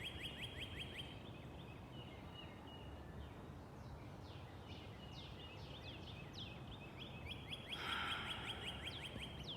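Songbirds singing in the early morning: a fast trill of short repeated chirps at the start and again near the end, with scattered single falling whistled notes in between, over a steady low background rumble.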